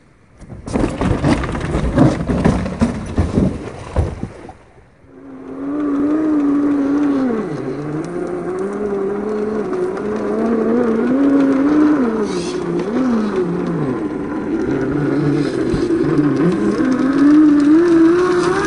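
Electric motor and gearbox whine of a TRX-4 Defender RC rock crawler climbing over rock. The pitch rises and falls as the throttle is worked, and the whine grows louder as the truck comes close near the end. The first few seconds are rough, noisy scraping with sharp knocks before the whine sets in.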